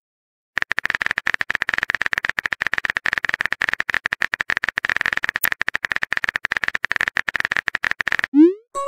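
Phone-keyboard typing sound effect of a texting app: a rapid, even stream of key clicks starting about half a second in and running for nearly eight seconds. It stops near the end and is followed by a short rising swoosh as the message is sent.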